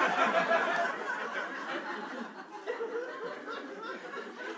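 Comedy-club audience laughing at a punchline, loudest at first, dying down about two seconds in, then picking up again near the end.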